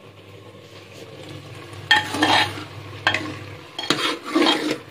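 A spoon stirring thick carrot halwa (gajar ka halwa) in a steel pot, scraping the pot a few times starting about two seconds in, over a low steady hum.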